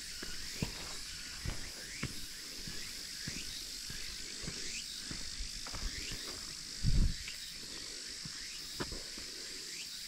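Steady high-pitched insect chorus with footsteps on a path at walking pace, and one short low thump about seven seconds in.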